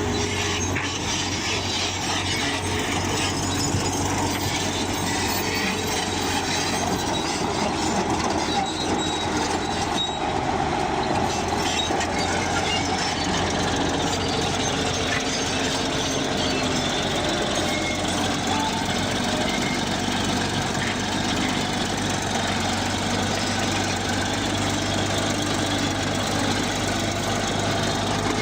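Crawler bulldozer at work: its diesel engine runs steadily under the clatter and squeal of its steel tracks.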